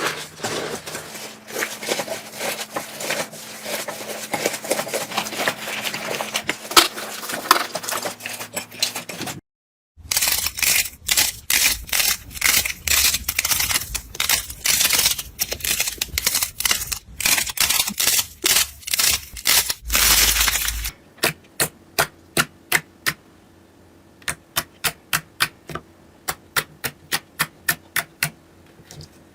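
Slime being squeezed and pressed by hand, crackling and popping densely; after a brief cut to silence it gives louder crunchy bursts. In the last third it gives a regular run of sharp clicking pops, about three a second.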